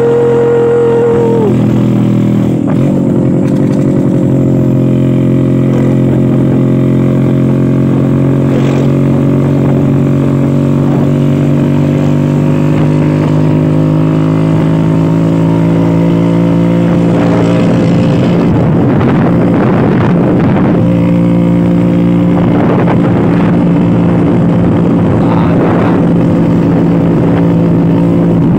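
Vintage Vespa scooter's two-stroke engine running steadily under load on an uphill climb, its pitch drifting slightly. A flat horn tone ends about a second and a half in, and gusts of noise come and go in the second half.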